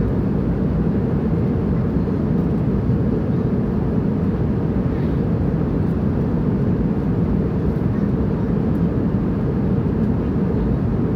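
Airplane in flight: a steady, low rumble of engine and airflow noise that does not change.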